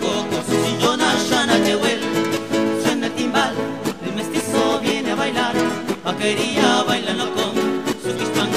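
Background music in a Latin American style, led by plucked strings and guitar.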